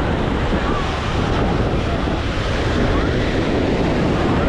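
Ocean surf washing on the beach with wind buffeting the microphone, faint voices in the background.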